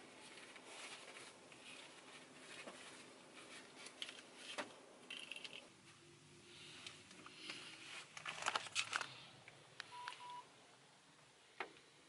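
Clothing and a cloth tote bag rustling as a hoodie is handled and pulled on, with scattered small clicks and a louder flurry of rustling about eight to nine seconds in. A single short beep sounds near the end.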